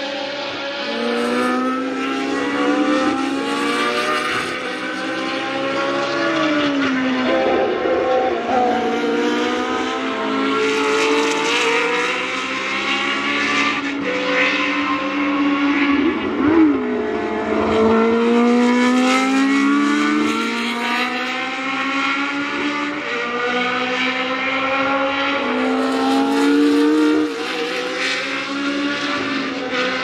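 Historic Formula 1 race cars' engines at full racing revs, with more than one car heard at once. Each engine's pitch climbs steadily and drops back at every upshift as the cars accelerate through the gears, again and again.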